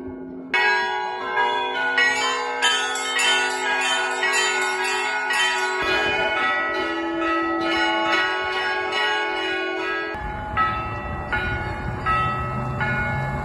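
Orthodox church bells rung by hand in a festive Easter peal: several bells of different pitch are struck one after another in quick succession, each note ringing on. About ten seconds in, the strikes become sparser over a low rumbling noise.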